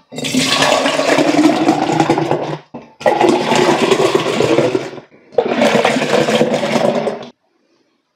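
Melon-flavoured milk glugging out of small upturned bottles, two at a time, into a tall glass, filling it up. Three pours of about two seconds each, with short breaks between them.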